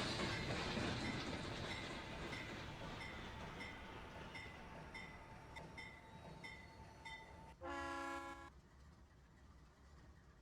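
Steam-hauled doubleheader train of PRR 7002 and PRR 1223 rolling away and fading, its wheels clicking at a steady rhythm over the rail joints. About seven and a half seconds in, one short whistle blast of under a second.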